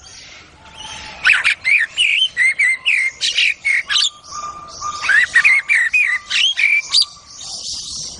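A bird singing a fast run of short whistled notes that slide up and down, starting about a second in and stopping shortly before the end. A steadier, lower whistled note is held beneath the song through the middle.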